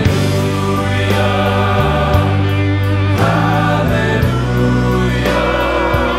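Background music: singing over sustained chords that change about once a second.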